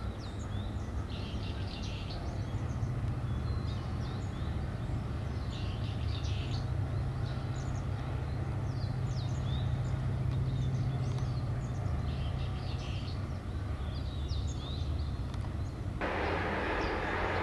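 A steady low mechanical hum, swelling in the middle, with small birds chirping repeatedly above it. About sixteen seconds in, a louder even rushing noise cuts in suddenly.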